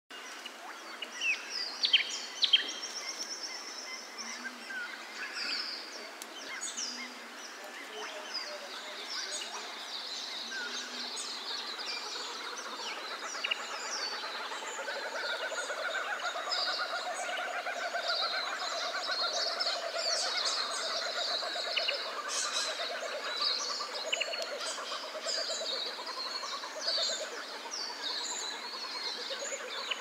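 Dawn chorus of Australian bush birds recorded at sunrise: many birds calling and singing at once, a dense mix of short chirps and whistles. Two loud sharp calls stand out about two seconds in, and the chorus grows fuller from about halfway.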